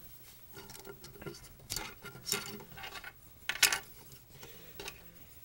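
Hard plastic parts of a Transformers action figure and its two sword blades clicking and clattering as they are handled, a string of short sharp clicks, the loudest a little over two and three and a half seconds in.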